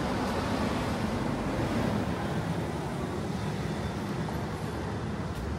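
Steady outdoor town ambience: an even low rumble of distant road traffic, with no distinct events.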